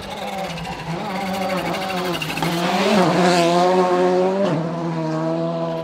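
Volkswagen Polo GTI R5 rally car's turbocharged four-cylinder engine under hard throttle as the car comes up and passes close by on a wet road. The engine note rises and falls, and it is loudest about three seconds in, with a rush of hissing noise as the car goes by.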